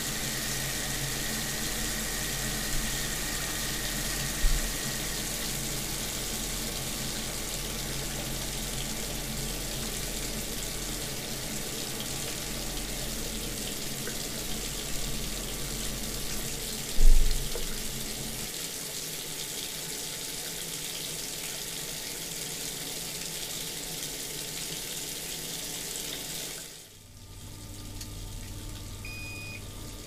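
Water running steadily from a bathroom tap into a sink basin, with a single sharp thump a little past halfway.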